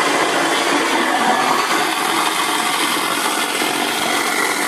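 Garbage disposal working as an apple grinder, its motor running steadily while it grinds quartered apples into pomace, a loud, even grinding noise.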